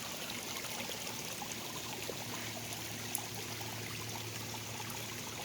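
Pond waterfall: water splashing and trickling steadily over rocks, with one small click about three seconds in.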